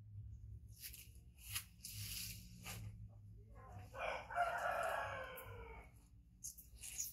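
One drawn-out pitched animal call about four seconds in, lasting nearly two seconds and sagging slightly in pitch at the end, after a few seconds of soft rustling and clicks.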